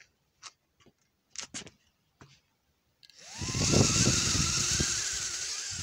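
Small drone's electric motors and propellers spinning up about three seconds in with a rising whine and a strong rushing hiss, running a few seconds and then dying away. A few faint clicks come before it.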